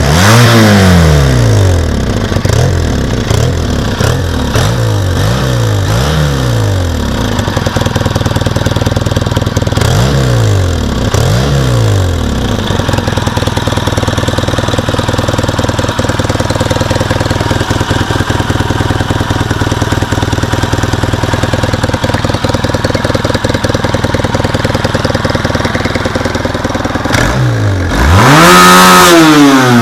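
Yamaha XTZ 750 Super Tenere's parallel-twin engine on its stock silencer, revved in a string of quick throttle blips, then two more a few seconds later. It settles to a steady idle for about fifteen seconds, then is revved once higher and louder near the end.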